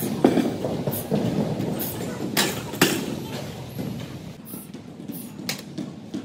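Steel barbell clanking twice, about half a second apart, as it is set back onto the hooks of a bench-press rack, over a low background murmur.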